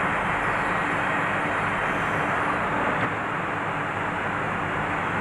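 Plywood double-sizer panel saw running: a steady mechanical whir of saw motors with a hum, which drops a little in level about halfway through.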